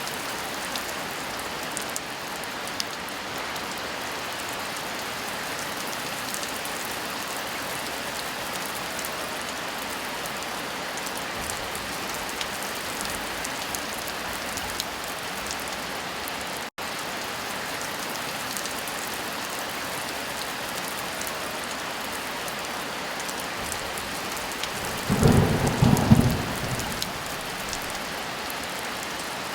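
Steady heavy rain falling, with one short, loud clap of thunder about 25 seconds in. A split-second dropout in the rain comes near the middle.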